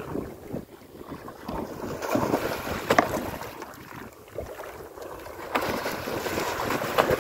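Hooked yellowfin tuna thrashing and splashing at the surface beside a small boat, with wind buffeting the microphone. Two sharp knocks stand out, one about three seconds in and one near the end.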